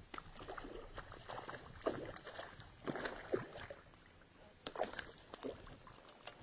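Short, irregular splashes and sloshing of water as a small hooked largemouth bass thrashes at the surface while it is reeled to the boat.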